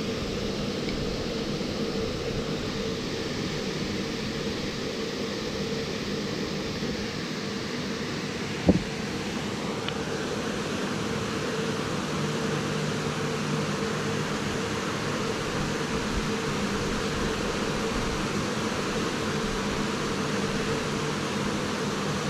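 A steady mechanical hum with a low drone, with one short knock about nine seconds in.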